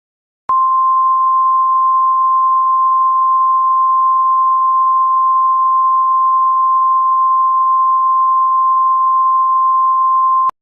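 Emergency Alert System attention tone: one steady, loud single-pitch tone of about 1050 Hz, the NOAA weather-radio style alert signal. It starts about half a second in, holds unchanged for about ten seconds and cuts off abruptly, signalling that an emergency voice message follows.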